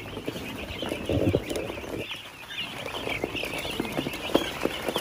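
A flock of chickens calling all at once, a dense chatter of short clucks and peeps, with scattered sharp clicks and knocks among them.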